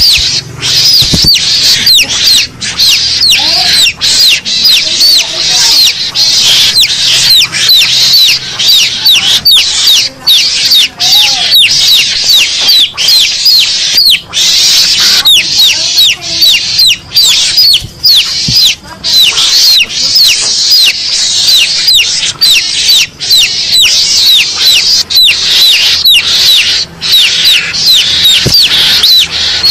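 Mongoose lure call played back: a loud, unbroken string of short, high-pitched, falling chirps, several a second.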